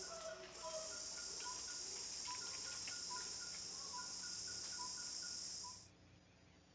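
Forest ambience from a wild field recording: a steady, high insect chorus with short repeated chirps over it. It cuts off about 6 seconds in, leaving faint room tone.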